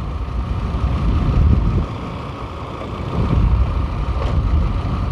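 Motorcycle on the move, heard from a helmet-mounted microphone: engine and wind noise as a low, uneven rumble that eases for about a second midway.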